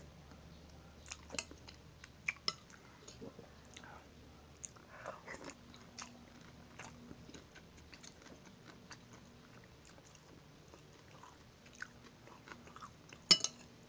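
Close-up eating sounds: instant ramen noodles being slurped and chewed, with many small wet clicks of the mouth and a sharp click near the end.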